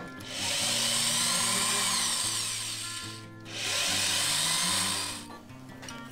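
Cordless drill-driver running in two bursts, about three seconds and then about two, driving screws into a hardboard cabinet back panel, its motor whine rising and falling in pitch. Acoustic guitar music plays underneath.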